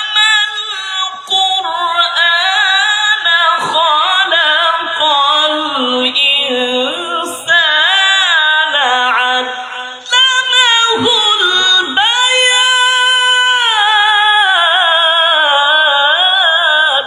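A single melodious voice chanting in the melismatic style of Quran recitation (tajwid), drawing out long held vowels with winding, ornamented pitch runs and only brief breaks for breath.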